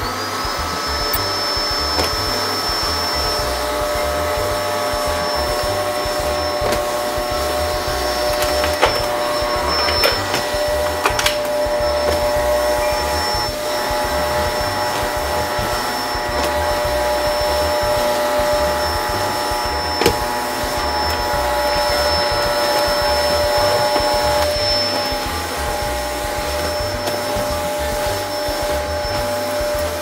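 Battery-powered toy vacuum cleaner running with a steady whine from its small motor as it sucks up small plastic beads. There are a few sharp clicks along the way, and the motor winds down at the very end.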